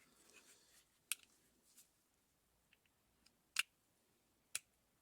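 Faint handling noise from the cordless ratchet kit's parts being moved about: a soft rustle at first, then three sharp clicks, about a second in, past halfway and near the end, with a few fainter ticks between.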